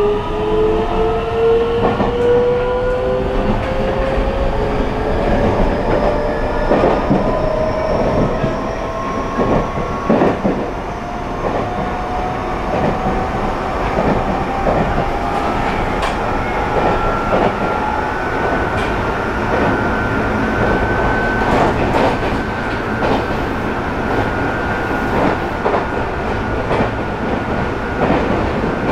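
Toyo IGBT-VVVF inverter and traction motors of a Nagoya Subway N3000 train whining as it accelerates, heard from inside the car. Several tones rise steadily together in pitch and level off in the last third, over the running rumble and repeated clicks of wheels over rail joints.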